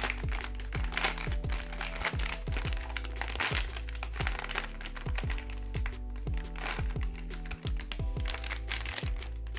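Plastic blind-box packaging crinkling in quick, irregular crackles as it is handled, easing off for a moment about halfway through, over background music with a steady beat.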